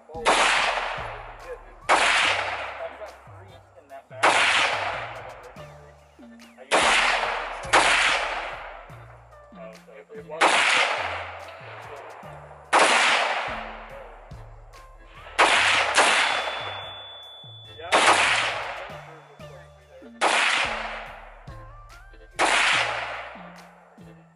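AR-15 rifle fired in slow, aimed single shots from a rest, about a dozen in all, one every two to three seconds. Each sharp crack trails off in a long echo.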